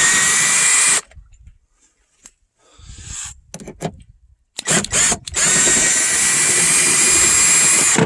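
Power drill fitted with a Torx bit, running in two spells to back out the bolts holding the trunk latch actuator: about a second at the start, brief blips in the middle, then a longer run of about two and a half seconds near the end, with a steady whine.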